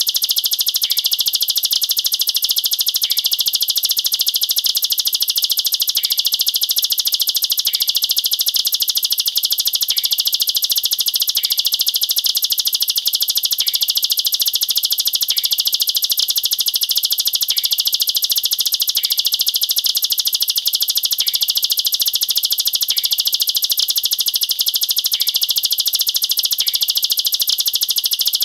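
Plain prinia (ciblek sawah) singing an unbroken, very rapid, high-pitched trill of quick notes packed close together, the 'nembak rapat' machine-gun style of song.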